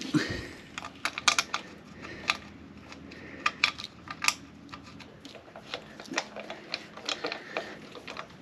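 Irregular light clicks and taps of small parts being handled and fitted while a choke cable is refitted to a Suzuki DR650 motorcycle. A soft knock comes right at the start, and the sharpest clicks fall about a second in and again around four seconds.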